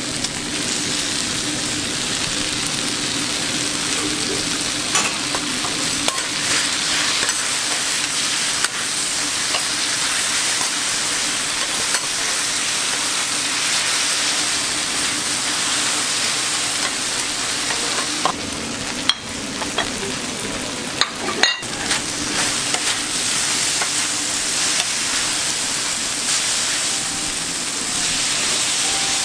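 Fried noodles, pork and cabbage sizzling on a hot steel teppanyaki griddle in a steady hiss, with metal spatulas scraping and clicking against the plate now and then as the food is tossed.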